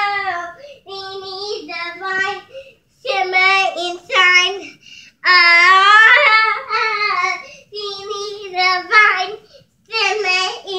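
A young girl singing solo in a high voice, in phrases of a second or two broken by short pauses.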